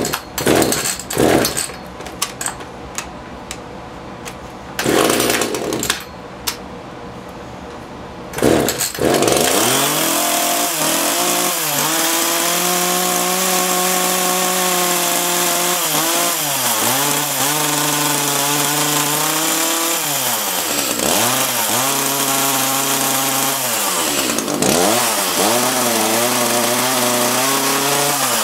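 Echo CS-330T top-handle chainsaw's small two-stroke engine being pull-started: several short pulls, then it catches about nine seconds in and keeps running, its speed rising, holding and falling again several times as the throttle is worked. The mechanic judges it to be starving for fuel at high speed, probably needing a carb kit.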